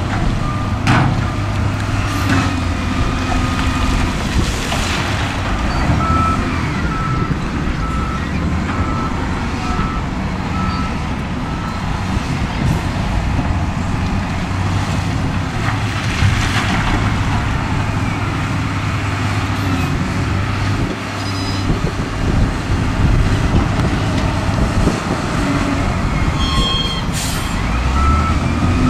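Wheel loader diesel engines running under load as the loaders push dirt and rock. A reversing alarm beeps steadily about once a second for several seconds in the first half, and there are a few scrapes and clunks of rock against the bucket.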